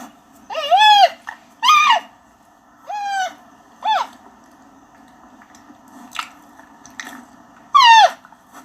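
Giant panda bleating: five short, high, wavering bleats, each dropping in pitch at its end. Four come in quick succession, then there is a pause of a few seconds before the last one.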